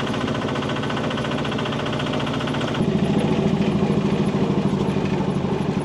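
Tractor engine running under load with a fast, even chug. About three seconds in, the sound turns deeper and heavier.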